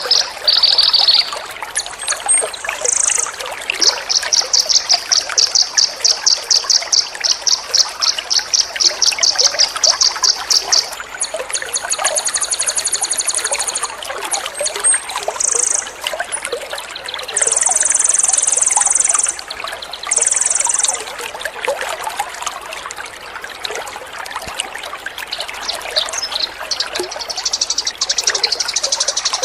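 Water trickling steadily, with songbird calls over it. The calls come as a long run of fast repeated chirps, then high thin trills and short buzzy phrases, and a further burst near the end.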